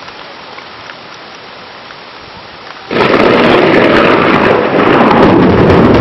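Steady rain during a thunderstorm, then about three seconds in a sudden loud crack of thunder from a nearby lightning strike that keeps rumbling on over the rain.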